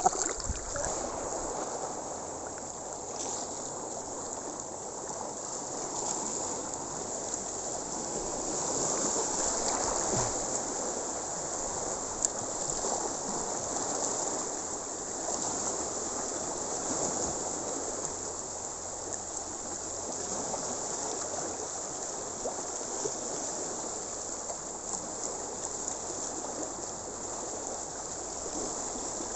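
Sea water washing and trickling over shoreline rocks, a steady rushing wash that swells gently now and then.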